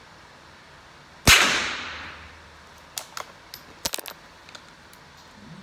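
A single rifle shot about a second in, echoing for about a second afterwards. About two seconds later comes a quick string of sharp metallic clicks as the rifle's bolt is worked to reload.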